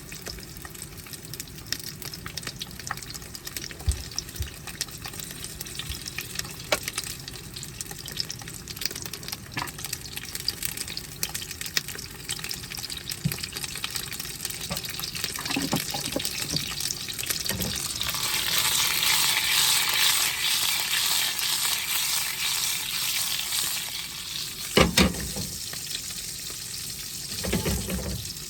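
Food frying in oil in a pan: a steady crackling sizzle that swells louder about two-thirds of the way in, then eases. A couple of knocks follow near the end.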